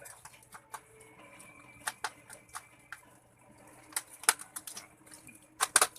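Irregular sharp clicks and taps, with a quick cluster of louder ones near the end.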